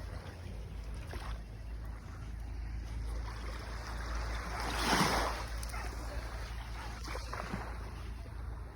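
Sea waves washing on the shore with wind rumbling on the microphone; one louder wash swells and fades a little past halfway.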